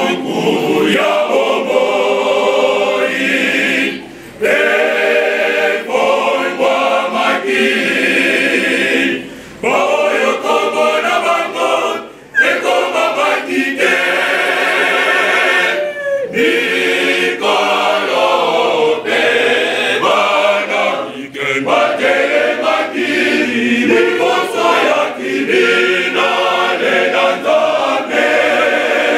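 A choir singing without instruments, in phrases broken by a few short pauses.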